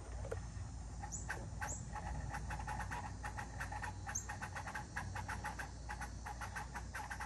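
An unidentified outdoor clicking noise: fast, irregular short clicks, several a second, with a few brief high rising chirps among them.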